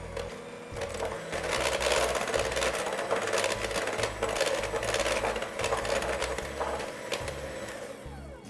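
KitchenAid electric hand mixer running, its beaters churning a wet butter, sugar and egg batter in a glass bowl. The motor gets louder about a second in, runs steadily, and is switched off near the end.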